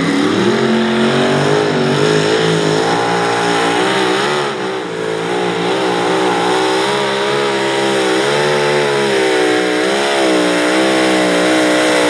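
Mini modified pulling tractor's engine at full power under load during a pull: it winds up in pitch at the launch, then holds at high revs with the pitch wavering up and down as the load on the tractor changes.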